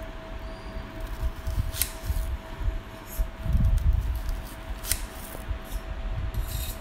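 Kitchen knife slicing a red onion into rings on a stone countertop: quiet cutting through the onion, with two sharp clicks of the blade meeting the stone about two and five seconds in.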